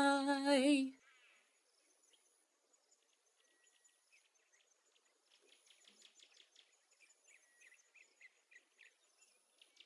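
A drawn-out sung 'Bye!' ends about a second in, then faint birdsong follows: quick high chirps that come thicker from about halfway, over an on-off high thin trill like an insect.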